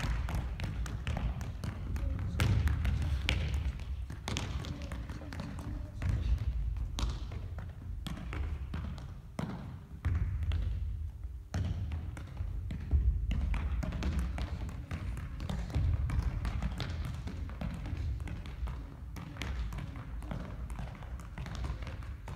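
A soccer ball being juggled on the feet: a run of light, irregular taps of shoe on ball, with the odd shoe step on a wooden gym floor.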